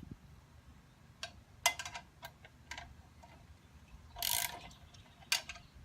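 Socket ratchet wrench clicking in short runs while nuts on a toy excavator are snugged up, with a few separate metallic clicks and a longer, louder rattle of the ratchet a little past the middle.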